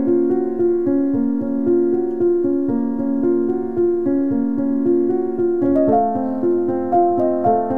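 Background music: a keyboard playing an evenly paced melody over held chords, moving up to a higher register about six seconds in.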